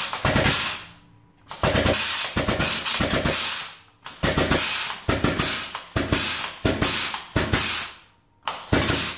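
Hydraulic shop press being pumped by foot under heavy load as it forces a U-joint out of a driveshaft yoke: runs of rapid sharp metallic clicking and rattling, broken by brief pauses about a second, four seconds and eight seconds in.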